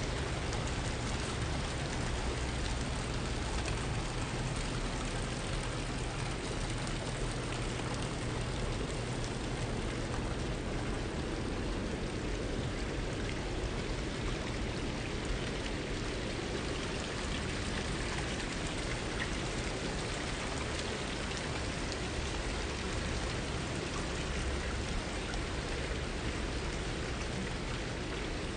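Stone garden water fountains splashing and trickling in a steady, even patter, over a steady low rumble.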